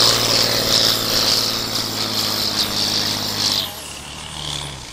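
Loud, steady engine of a competition pulling tractor running at constant high revs, with a strong hiss. It cuts off abruptly about three and a half seconds in, leaving a fading lower engine note and a high whine that slides down.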